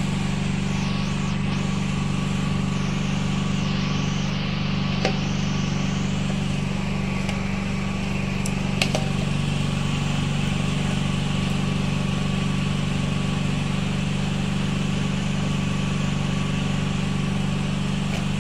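A steady, low mechanical drone like a small engine running, with two light clicks about five and nine seconds in.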